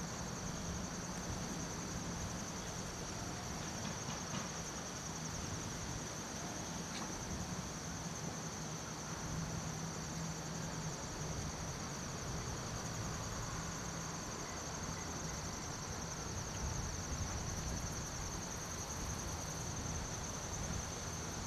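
Insects trilling in a steady, high-pitched chorus that runs on without a break, over a faint low hum.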